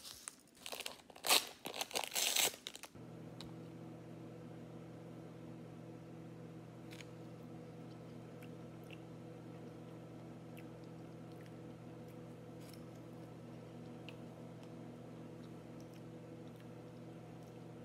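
Clattering and crinkling handling noise for about three seconds, then a microwave oven switches on and runs with a steady low electrical hum, heating a bowl of grits. A few faint clicks sound over the hum.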